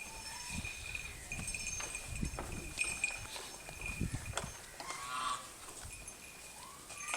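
Cattle with a bell ringing on and off, a short animal call about five seconds in, and low knocks and bumps from the animals moving.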